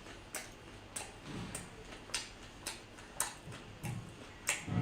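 Close-up eating sounds of a person chewing seafood: wet mouth clicks and smacks about every half second, with soft chewing thuds between them.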